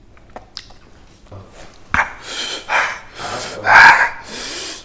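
A man's hard, harsh breathing: quiet at first, then several loud gasping exhalations from about two seconds in, the loudest just before the end, as he reacts to the burn of raw green chillies.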